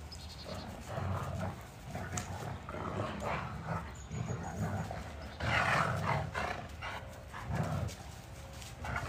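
Dogs, wolfdogs and a German shepherd, vocalizing in rough play in a series of short, rough bursts, with a louder outburst about five and a half seconds in.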